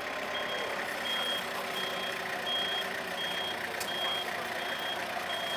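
Komatsu forklift's back-up alarm beeping, even and high-pitched, about three beeps every two seconds, over the forklift's engine running steadily.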